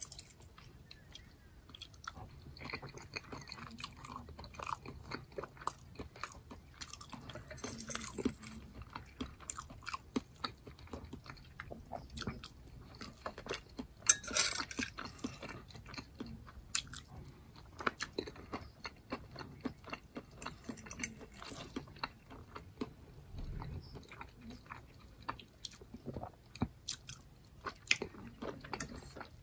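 Close-miked chewing and biting of soft leftover food (chicken, squash, ground turkey and rice), with many small wet mouth clicks. A metal fork scrapes and taps on a ceramic plate, with one sharp clink a little past halfway.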